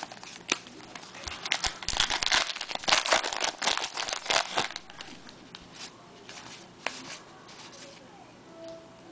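Plastic wrapper of a baseball card pack crinkling and tearing as it is opened, densest over a few seconds near the middle, then fading to faint scattered handling ticks.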